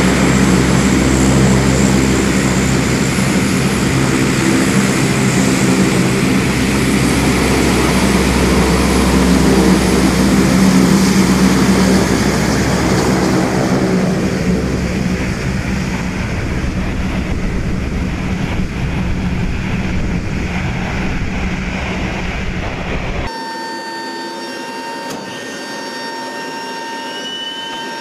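C-130 turboprop engines running on the ground, a loud steady drone with propeller hum that eases off somewhat partway through. About 23 seconds in it cuts abruptly to a quieter, steady high whine.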